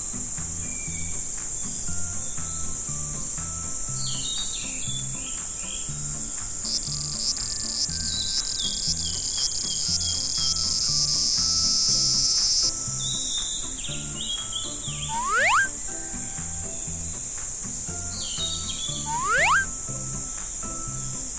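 Summer cicadas buzzing in a steady high drone, with a louder pulsing cicada call for about six seconds in the middle, over light background music with a repeating bass line. Short bird-like chirps come in now and then, and two rising whistle-like swoops sound in the last third.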